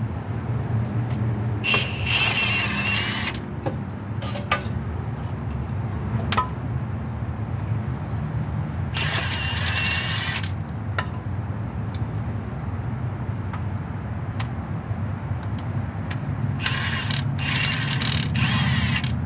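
Impact gun run in three bursts of a second or two each, with a high whine, spinning off the bolts of a truck driveshaft's center support bearing, over a steady low hum.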